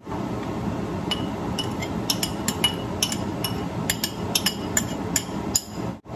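Sharp, irregular clinks and taps of a utensil against a white ceramic bowl as cooked rice is scraped out, each with a brief ringing tone, over steady background noise.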